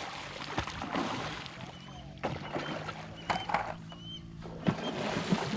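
A hooked cachapira, a large catfish hybrid, thrashing and splashing at the water's surface while being fought on rod and line: a rough, uneven splashing with several sharper splashes.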